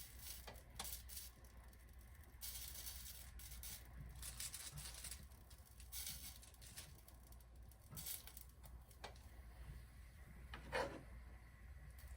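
Faint scraping and rubbing of a spoon spreading Alfredo sauce over garlic bread, in short patches, with a few light knocks; the loudest knock comes near the end.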